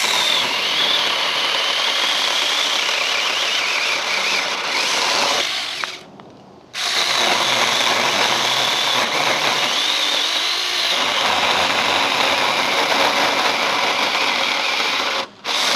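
Battery-powered 6-inch mini chainsaw, 24 V, running and cutting through a tree branch. Its motor whine wavers in pitch under load. It stops briefly about six seconds in and again near the end, starting up again each time.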